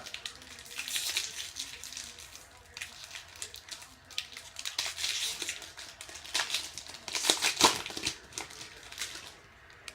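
Foil wrapper of a baseball card pack being torn open and crinkled, in irregular spells of crackle.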